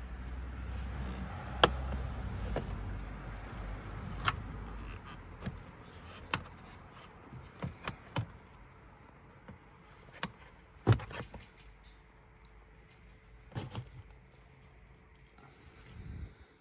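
Scattered sharp clicks and knocks of plastic car interior trim and clips being handled, with a low rumble that fades after about five seconds.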